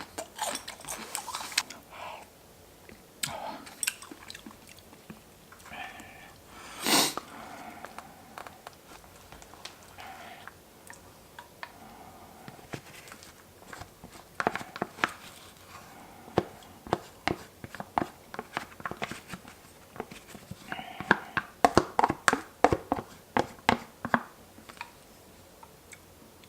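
A person chewing and biting food, with many sharp crunches that come thickest in the second half. One louder, longer rushing sound comes about seven seconds in.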